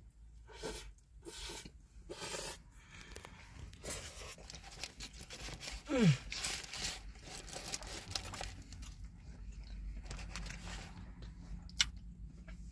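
Sandwich being bitten and chewed close to the microphone, soft bread and brisket, with small wet mouth noises. About six seconds in there is a short, loud tone that slides down in pitch, and a sharp click comes near the end.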